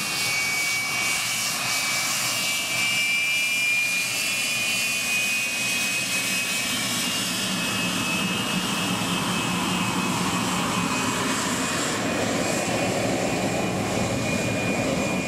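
Aermacchi MB-339 jet trainer taxiing, its turbojet running with a steady high-pitched whine over a continuous rush. A lower rumble grows in the second half.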